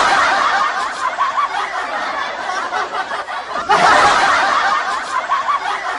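A group of people laughing together, many voices at once. The laughter swells right at the start and again in a second loud burst about four seconds in.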